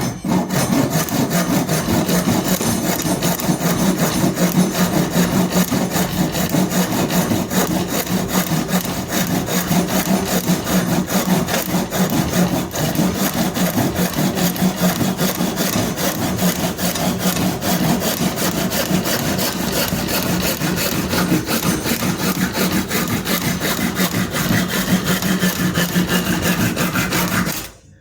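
A saw cutting steadily through a piece of an old wooden axe handle, then stopping abruptly near the end as the handle blank is cut free.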